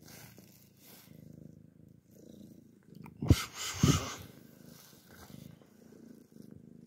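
Domestic cat purring close up while being stroked. A little past the middle come two loud brushing noises, about half a second apart.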